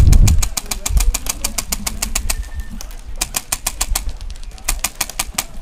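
Airsoft guns firing in rapid strings of sharp clicks, about eight to ten shots a second, with gusts of wind buffeting the microphone, loudest at the very start.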